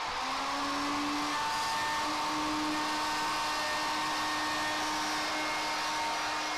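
A 1400-watt handheld plunge router running at full speed with an edge-moulding bit, cutting a profile along the edge of a hardwood board. It gives a steady high whine.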